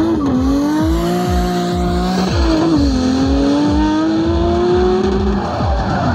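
Race car engine sound effect: an engine revving up through the gears, its pitch climbing slowly and dropping back at each shift, over repeated fast pass-by whooshes that fall in pitch.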